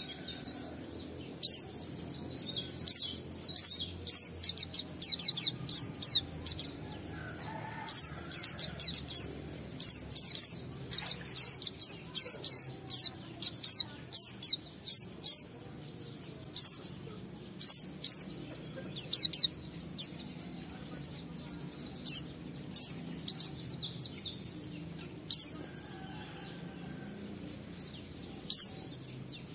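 White-eye (pleci) singing its 'ngalas' song: runs of high, thin, rapid chirping notes, each a quick downward sweep, in clusters of several, separated by short pauses.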